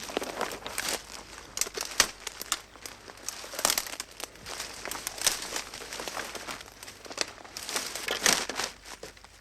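Footsteps walking through undergrowth, the plants rustling underfoot in irregular steps.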